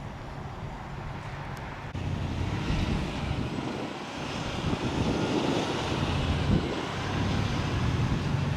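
Steady outdoor engine noise, a low rumble with hiss, growing louder about two seconds in.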